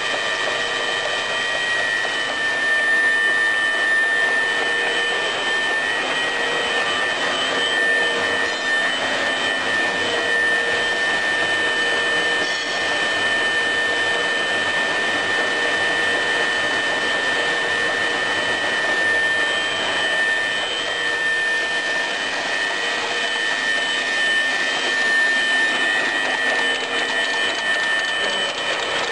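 Welding electrode wire straightening and cutting machine running steadily, a constant high whine over mechanical clatter.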